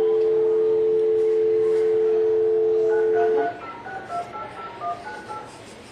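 Telephone dial tone, a steady two-note hum lasting about three and a half seconds, cut off by a quick run of about ten touch-tone beeps as a number is dialed.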